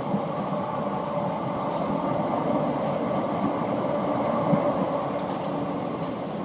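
Steady running noise inside a moving TRAX light-rail car: a low hum and rumble of the car on the track, with a faint short hiss a little under two seconds in.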